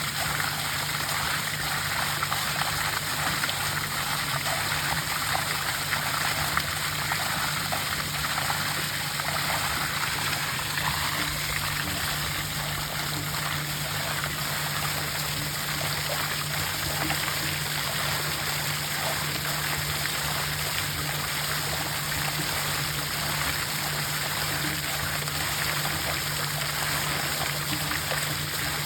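Seawater gushing steadily from a pool's inlet outlet and splashing into the water, over a steady low hum.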